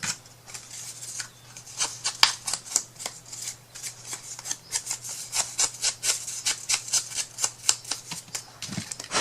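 A paper strip being handled and fitted by hand: a run of irregular light crinkles and taps, several a second, over a steady low hum.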